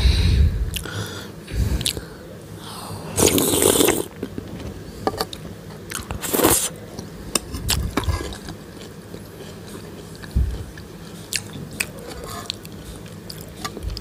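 Close-up eating sounds of spicy soupy Maggi instant noodles: chewing and biting, with two longer slurps. Metal fork and spoon clink and scrape against the ceramic bowl in short sharp clicks.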